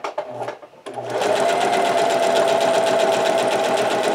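Singer Heavy Duty electric sewing machine starting up about a second in and stitching through folded paper at a steady speed under its foot pedal. The motor whine holds one pitch over a fast, even rattle of needle strokes.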